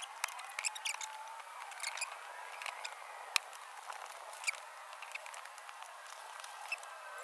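Scattered light clicks and knocks of wooden boards and foam pads being handled and stacked on a plank bench, the sharpest about halfway through, over faint squeaky chirping. The sound is thin, with no bass.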